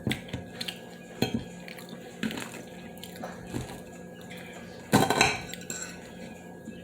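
Cutlery clinking and scraping against a plate in short, scattered taps, with a louder clatter about five seconds in.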